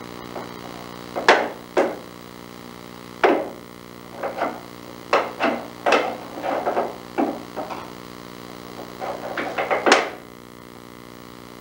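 A parakeet pecking at and jostling a small wooden drawer: irregular sharp wooden knocks and rattles, with a quick cluster of taps near the end, over a steady low hum.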